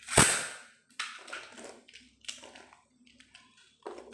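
A Beyblade ripped from its ripcord launcher, a loud sudden zip and clack at the start, then the top spinning on a cardboard stadium floor with scattered light clicks and scrapes and a faint steady hum.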